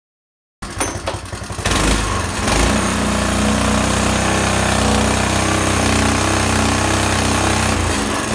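Small gasoline engine of a Nakatomi ERC-98DQ mini tiller running, its tines spinning. It starts uneven, gets louder and settles into a steady run about a second later, and eases off slightly near the end.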